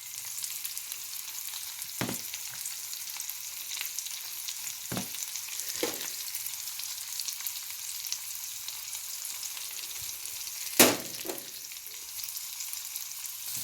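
Crumbled sausage and mushrooms sizzling steadily in a frying pan, with a few knocks and scrapes of a utensil against the pan, the loudest near the end.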